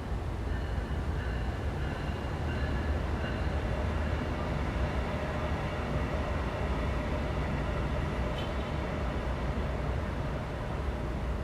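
Steady low rumble of a passing vehicle. Faint high whining tones sit over it in the first few seconds, and a lower steady hum runs through the middle.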